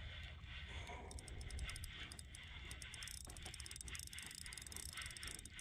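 Spinning reel being wound in on a hooked fish, giving a fast, faint ticking, with a low rumble underneath.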